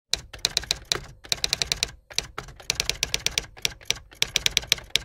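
Typing sound effect: quick runs of sharp keystroke clicks with short pauses between runs, keeping time with text being typed out letter by letter.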